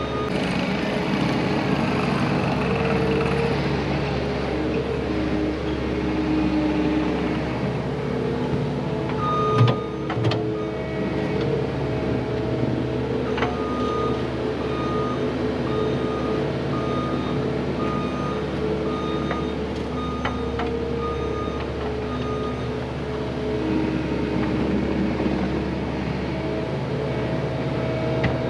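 Diesel heavy equipment engine running steadily, with a backup alarm beeping a little faster than once a second while it reverses. There are two knocks about ten seconds in, just as the beeping starts.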